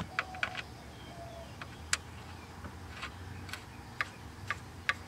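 Faint, sharp metallic clicks and ticks as a new oil-line fitting with taped threads is turned by hand into the fitting on the back of the oil pressure gauge. The clicks are irregular at first and come about twice a second in the second half.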